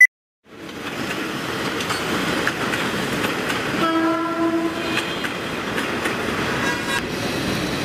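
A short high beep, then a loud, steady rushing and clattering noise. A horn-like tone sounds for under a second about four seconds in.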